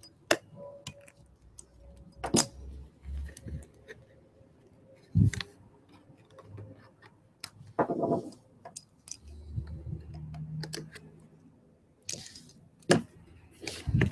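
Irregular clicks, taps and scrapes of a screwdriver prying metal staples out of the stapled end of a cardboard shipping tube, with a few sharper knocks among them.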